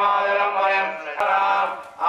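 A man chanting Hindu mantras through a microphone in long, held tones, with a brief break about a second in. One sharp click sounds just after the break.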